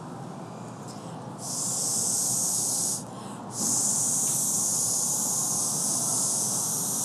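Blow pen being blown by mouth, a hiss of air spraying color onto a dog's hair. Two blows: a short one about a second and a half in, then after a brief pause a longer one of about three and a half seconds.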